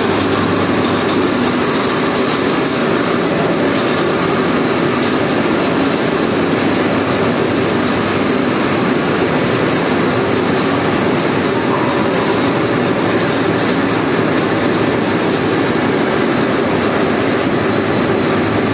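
Tape plant production line running: a steady, loud machinery drone from its rollers and drives, unchanging, with no separate knocks or starts.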